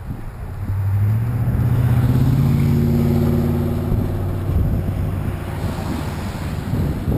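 Motor vehicle passing close to the bicycle, its engine hum swelling in, rising a little in pitch and fading after about four seconds, followed by rumbling tyre and wind noise on the microphone.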